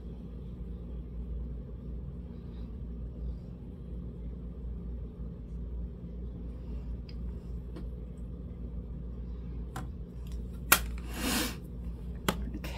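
Steady low room hum with faint handling sounds as makeup items are picked up and put down. Near the end come a few sharp clicks and a short hiss under a second long.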